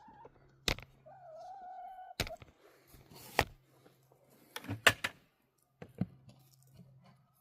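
A series of sharp knocks and thunks from things being handled and set down, the loudest a quick double knock about five seconds in. Between the first two knocks, a wavering drawn-out tone is heard briefly.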